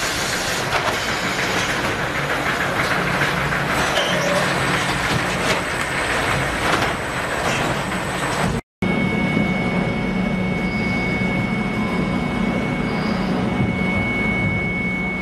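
Automated fish-packing line machinery running with a dense, steady clatter and scattered clanks. After a sudden cut about eight and a half seconds in, this gives way to a steadier machinery hum with a low drone and a high, steady whine in the ship's frost-covered freezer hold.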